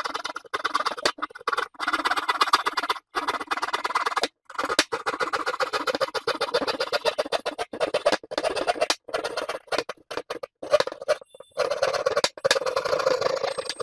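Hand drywall jab saw sawing through thick fire-rated drywall: rapid rasping back-and-forth strokes in runs, with several brief pauses between them.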